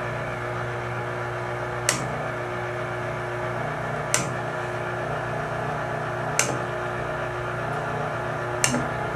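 Stenner peristaltic chemical feed pump running at its low feed-rate setting: a steady motor hum with a sharp click about every two and a quarter seconds, four in all, as the slowly turning roller assembly comes around.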